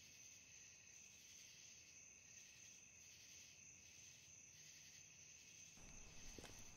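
Faint night ambience: a steady high cricket trill, with a few soft chirps repeating evenly in the middle. Soft footsteps begin near the end.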